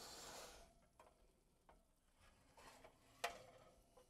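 Near silence with faint handling sounds of cookware: a brief soft rush at the start, a few light clicks, and one sharp clink about three seconds in.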